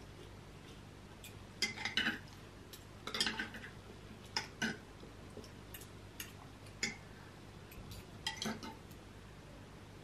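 Metal forks clinking and scraping against glazed ceramic bowls and a plate as two people eat, in short scattered clicks and small clusters every second or two.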